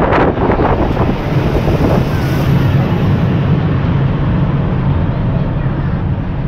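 Vintage tram running at speed, heard from aboard: a steady low rumble of wheels on rails and motors, with wind noise on the microphone.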